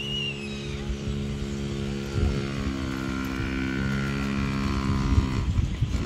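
Small motorbike engine running steadily, its pitch shifting a couple of seconds in and the sound fading out near the end. A single high bird chirp comes right at the start.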